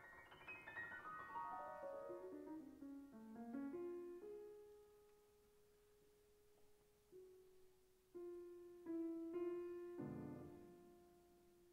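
Concert grand piano playing quietly: a fast descending run over the first three seconds or so, then a long held tone with a few sparse single notes and soft chords.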